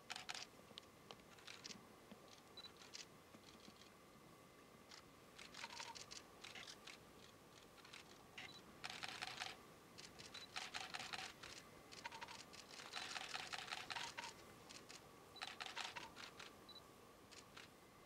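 Repeated bursts of rapid camera-shutter clicks, each lasting from half a second to over a second, several times over, the longest run about two-thirds of the way in, with a faint steady whine beneath.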